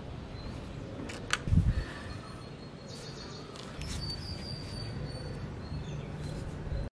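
A measuring spoon clicks and knocks against a small glass bowl about a second and a half in as spices are tipped into it, over steady outdoor background noise with a faint high bird chirp. All sound cuts off abruptly near the end.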